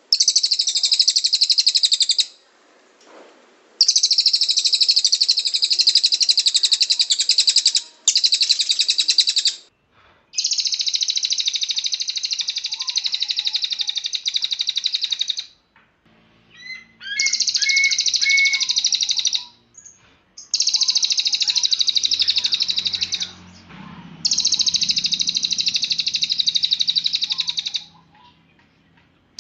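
A cililin songbird singing in long, rapid high-pitched trills (the 'tembakan' bursts prized in songbird training), each lasting a few seconds, with short pauses between them.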